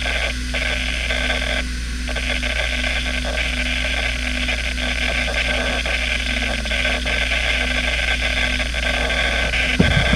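Fujitsu MBA3300RC 15,000 rpm SAS hard drive spinning with a steady hum and whine, its heads seeking rapidly and almost without pause in a dense, loud chatter of seek noise as it loads the operating system during boot. Near the end come a few heavier low knocks.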